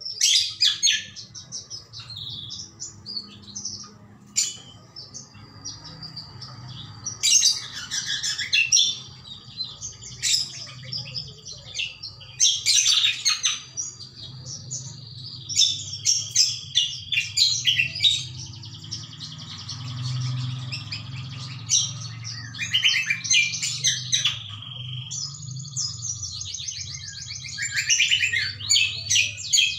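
Greater green leafbird (cucak kombo) in full song ('gacor'): bursts of high whistles, chattering phrases and fast trills, some notes held briefly, with short pauses between bursts.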